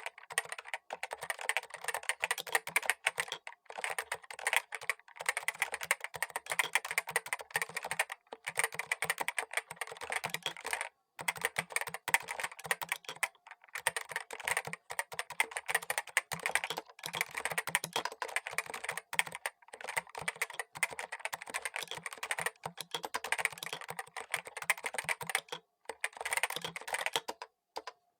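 Fast, continuous typing on a Topre Realforce RGB TKL keyboard, whose Topre electrostatic capacitive key switches are resting on a desk mat. The typing breaks off briefly a few times, at about 11 and 13 seconds in and twice near the end.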